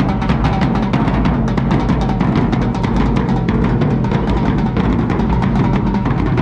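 A band playing live, with drums and percussion to the fore in a steady, dense rhythm.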